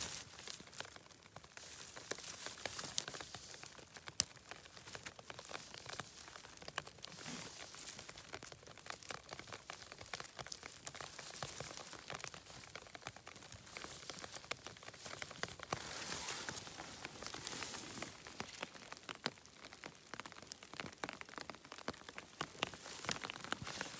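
Close, irregular rustling and crackling of gloved hands working through wet moss and undergrowth while picking mushrooms, with scattered small snaps and one sharp click about four seconds in.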